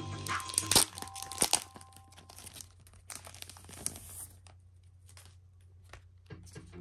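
Packaging being torn open and crinkled by hand: sharp crackles for the first second or so, then a longer tearing rasp about three seconds in. Background music drops out under it and comes back near the end.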